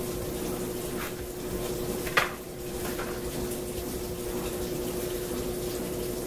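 Kitchen tap running steadily into a stainless steel sink while a head of cauliflower is unwrapped and rinsed, with a steady hum underneath. A light knock about a second in and one sharp clatter about two seconds in, from a knife and cutting board being handled at the sink.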